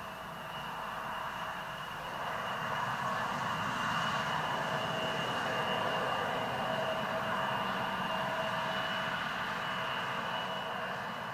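Embraer 170 regional jet's twin GE CF34 turbofans running at taxi power: a steady jet whine with a high tone over the rush of the engines, growing a little louder about three seconds in.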